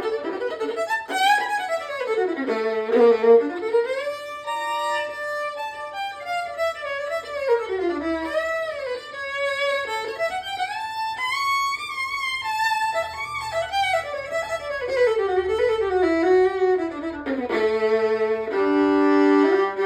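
A four-string fiddle is bowed through a fiddle tune, with notes that slide into one another. Near the end it holds two notes at once as a double stop. Its tone is big and bassy.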